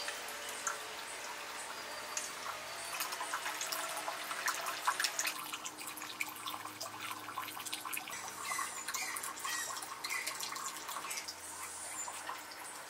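Small bamboo-spout garden fountain, water trickling and splashing steadily in small irregular drips.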